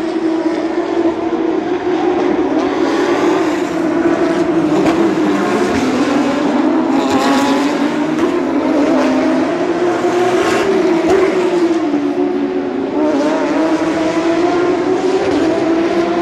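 Porsche 911 GT3 Cup race cars' flat-six engines at high revs, the pitch rising and falling through gear changes as the cars pass one after another.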